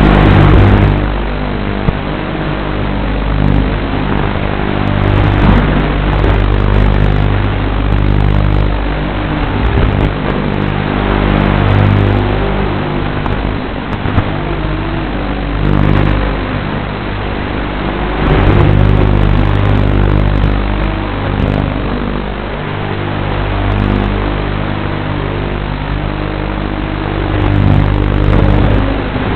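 Brushless motors and propellers of a Martian II 250 racing quadcopter whining in flight, the pitch rising and falling as the throttle changes, over a steady low hum.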